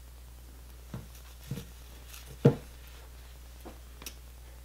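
Hands unwrapping and unfolding a fabric bandana from its packaging: a few short, soft rustles and taps, the sharpest about halfway through, over a faint steady low hum.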